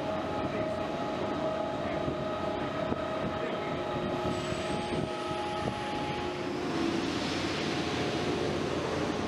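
Hydraulic machinery of an aircraft carrier's weapons elevator running as its deck hatch swings open: a steady mechanical hum with a few held tones over a wash of noise.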